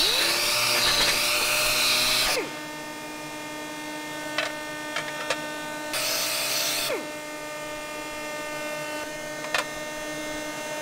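Handheld sander with a round pad deburring the edges of an aluminum tray: it spins up with a whine and hiss and runs about two seconds, then runs again for about a second in the middle, each time winding down with a falling whine. A few sharp clicks come between the runs over a steady machine hum.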